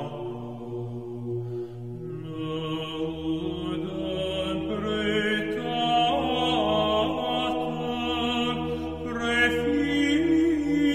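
Orthodox chant: voices singing a slow melody over a steady, held low drone note.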